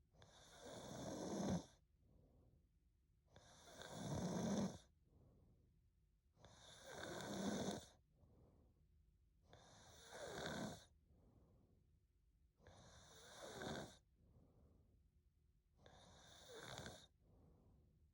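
A sleeping young woman snoring: six snores about three seconds apart, each swelling and then cutting off sharply, with soft breaths between them. The later snores are softer.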